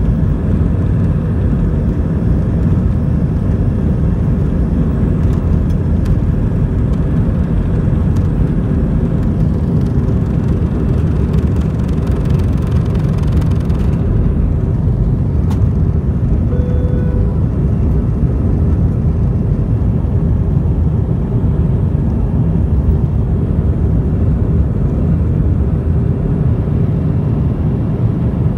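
Cabin noise of an Airbus A319 on its takeoff roll and climb-out: the jet engines at takeoff thrust make a loud, steady, low-heavy rumble. A higher hiss cuts off suddenly about halfway through, around liftoff, and a single click follows shortly after.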